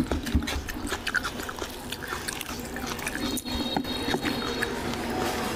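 Wet squelching with irregular crackles and clicks as bare hands tear apart a curry-soaked mutton head.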